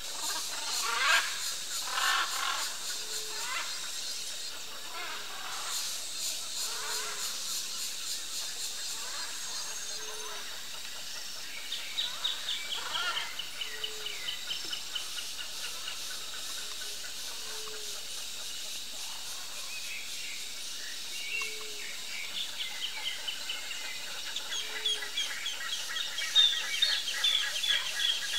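Wild birds calling in a chorus. A short low note repeats about every two seconds under bursts of rapid, high chattering, which grow louder near the end.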